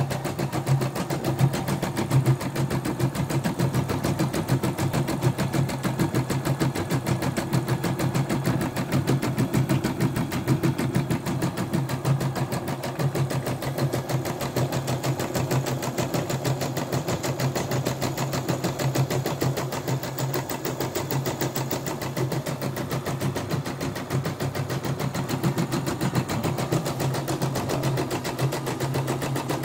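CNY E960 computerized embroidery machine stitching a design at a fast, steady rhythm. This is a test stitch-out after the machine was repaired for jamming.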